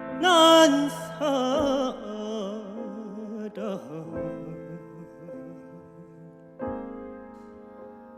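Korean fusion gugak music with jazz accompaniment: a wavering, heavily ornamented melody line with vibrato over sustained chords, a new chord struck about two-thirds of the way through and left to fade.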